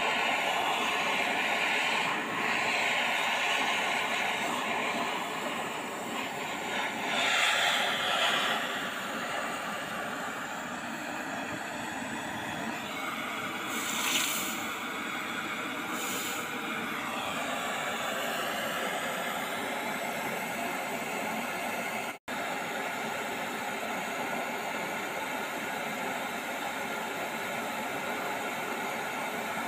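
Handheld gas blowtorch flame hissing steadily as it heats a steel hoe blade, with brief louder spells in the first half. The sound cuts out for an instant about three quarters of the way through.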